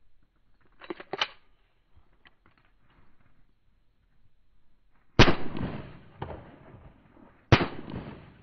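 Two 9mm pistol shots about two seconds apart, each trailing off in an echo. About a second in, a couple of quick clicks as the pistol is worked before firing.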